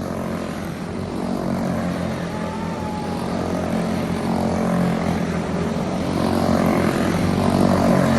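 Racing karts with small single-cylinder Briggs & Stratton Animal four-stroke engines buzzing around the track at speed, growing steadily louder as the field comes closer.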